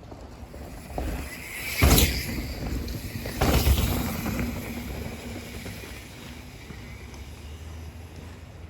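Mountain bike riding down a dirt trail, with wind rumbling on the microphone and tyre noise, and a loud knock about two seconds in and another burst of clatter about three and a half seconds in.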